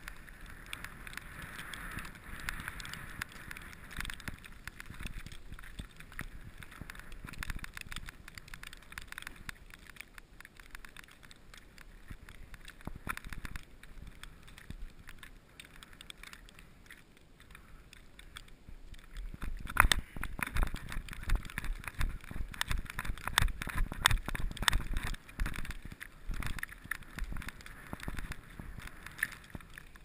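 Dog sled gliding over deep fresh powder, its runners hissing steadily through the snow. About two-thirds of the way through it turns rougher and louder, with repeated knocks and low rumbling as the sled bumps along.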